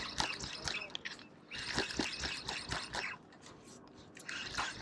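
Water splashing and lapping in irregular crackling spells, three of them with short lulls between.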